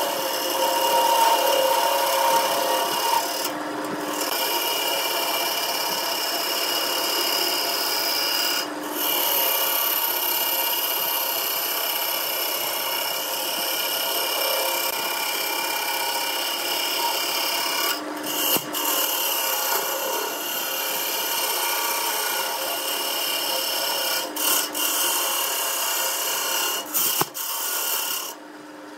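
Wood lathe spinning a layered blank while a turning tool cuts it: a steady hiss of shavings being peeled off, breaking off briefly a few times and dropping away just before the end.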